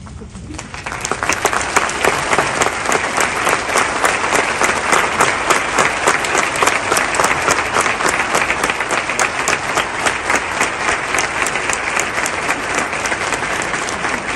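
A roomful of people applauding: dense clapping that starts about half a second in and keeps up steadily.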